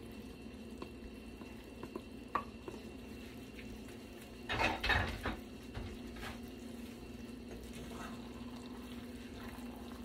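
A wooden spoon stirring sliced sausage into cooked rice in a metal pot, with a few light knocks and a louder clatter against the pot about halfway through, over a steady low hum.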